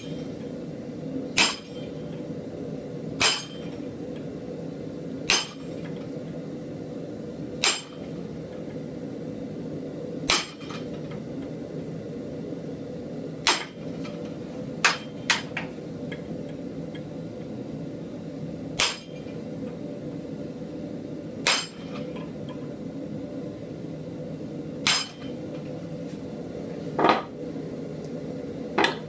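Hammer blows on a hand-held chisel cutting beard detail into a forged steel animal head held in a vise: about a dozen sharp strikes, one every two to three seconds, with two in quick succession about halfway through, over a steady hum.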